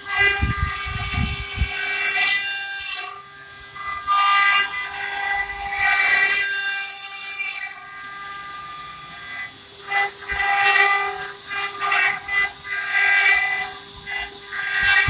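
CNC stone-carving machine at work: a steady high spindle whine runs throughout, broken by repeated screeching bursts of a second or two as the cutting bits bite into the stone.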